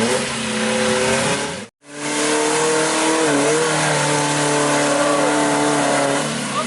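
Off-road jeep's engine running hard under load, its pitch shifting slightly. The sound cuts out completely for a moment about two seconds in.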